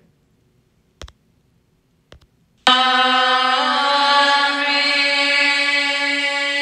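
Near silence broken by two short clicks, then about two and a half seconds in, background music starts abruptly: chant-like singing over a steady held drone, the upper voice stepping in pitch once.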